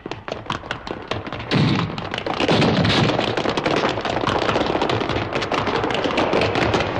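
Animated sound effect of armoured feet stamping on a stone floor: a fast run of heavy footfalls, about six a second. About a second and a half in, a denser, louder layer of noise joins the footfalls.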